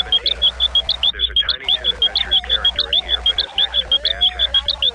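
A rapid, even train of short high-pitched chirps, about eight a second, like an animal call sound effect, over a low hum.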